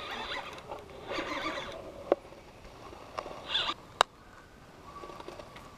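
A small largemouth bass being reeled in and lifted from the water: a few short splashing, rustling bursts and two sharp clicks.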